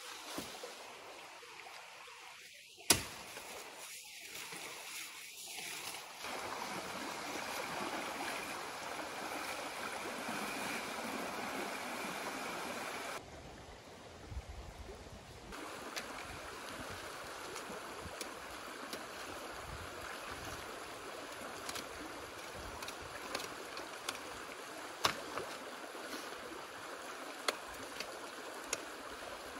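A shallow stream running over stones, a steady rushing hiss that comes in about six seconds in, with a few sharp clicks and knocks over it. Before that there is one loud, sharp snap about three seconds in.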